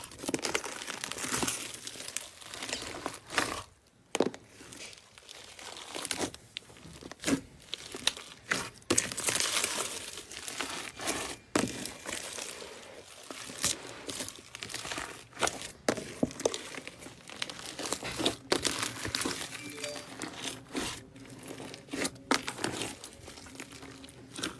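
Slime being squeezed and worked by hand, giving dense crackling with many sharp clicking pops.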